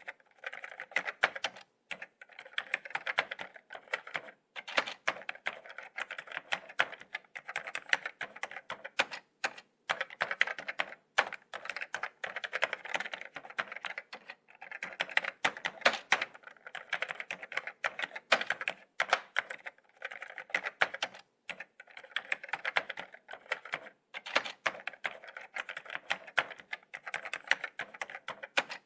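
Laptop keyboard being typed on: a steady stream of soft key taps in quick runs, with short pauses between them.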